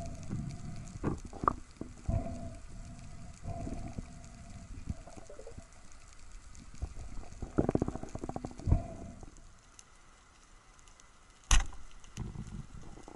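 Underwater handling noise at the spear shaft with a speared brown meagre on it: irregular knocks and thuds, a steady hum that comes and goes, and one sharp, loud knock about eleven and a half seconds in.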